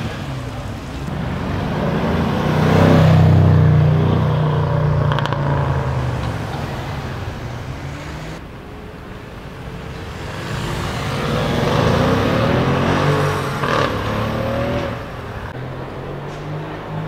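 A tuned high-performance car engine and exhaust as cars drive by. The sound swells to a peak about three seconds in and fades, then swells again from about eleven to fourteen seconds in, its pitch bending as the car goes past.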